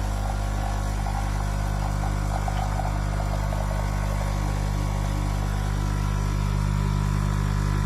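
The vibratory pump of a NESCAFÉ Dolce Gusto Piccolo XS pod coffee machine runs with a steady, even buzz as it pushes water through the pod to brew. A light crackle sits over it during the first half.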